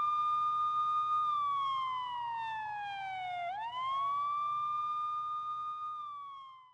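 Police car siren wailing: a single tone held high, gliding down for about two seconds, sweeping quickly back up, then fading out near the end.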